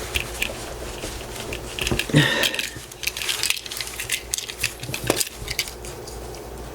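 Metal screwdriver prying and scraping at the seam of a sealed hard-plastic authenticator case, with irregular sharp clicks and short scrapes as the tool catches and slips. A denser scraping comes about two seconds in.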